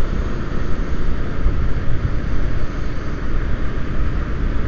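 A Bajaj Pulsar 150's single-cylinder engine running while the motorcycle is ridden on the road, buried under heavy wind rumble on the action camera's microphone. The noise is steady and deep throughout.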